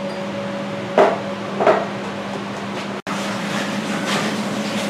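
Knocks and taps of hands and a metal ring cutter working ravioli dough on a steel worktop: two sharp knocks about a second in, then softer taps. A steady electric hum of kitchen equipment runs underneath.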